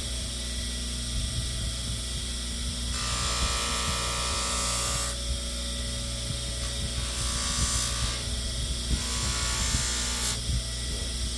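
Electric bench polisher running steadily with a low motor hum, while a higher hiss from the buffing wheel swells and drops back every couple of seconds.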